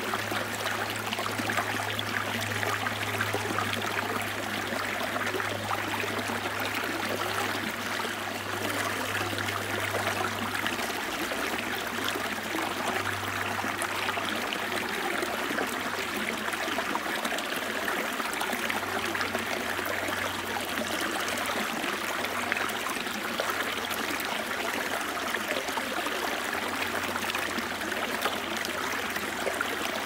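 A small rocky stream splashing and gurgling steadily as it spills over a low step between boulders into a shallow pool.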